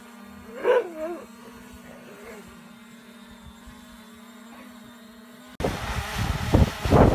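A dog barks once, loudly, about half a second in, with a couple of fainter barks after it over a steady hum. Near the end, after an abrupt cut, a small folding quadcopter drone's propellers whir close by, with wind on the microphone.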